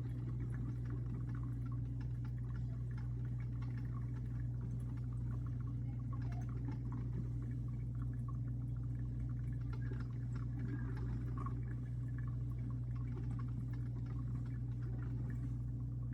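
A steady low hum with faint scattered ticks over it.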